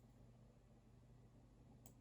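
Near silence with a steady low room hum, broken by a single sharp click from the computer desk near the end.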